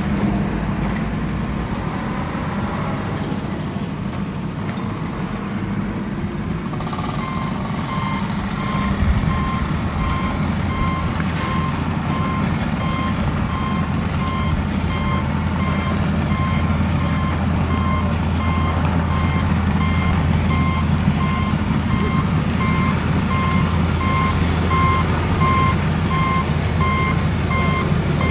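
Heavy truck engine running with a low rumble, joined about seven seconds in by a reversing alarm beeping at an even pace. The engine note gets heavier about two seconds later.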